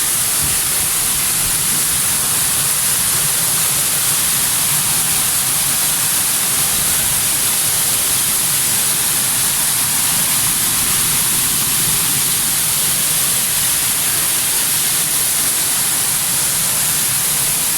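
Waterfall pouring steadily: a loud, even rushing noise with a strong high hiss and no breaks.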